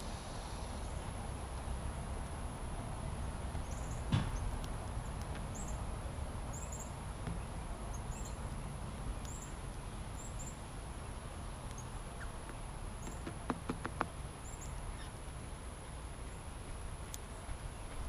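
Short, high bird chirps repeated about once a second over a steady background hiss, with a sharp click about four seconds in and a quick run of clicks near the end.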